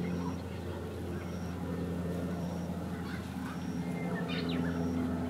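Herons squawking at a black-crowned night heron nesting colony, with a burst of calls about four seconds in, over a steady low mechanical hum.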